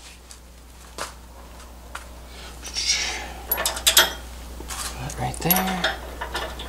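Steel hitch hardware (bolts, nuts and washers) clinking and clicking as a bolt is fitted by hand into a truck's receiver hitch bracket, in scattered sharp metal clicks and clanks. A brief voice sound near the end.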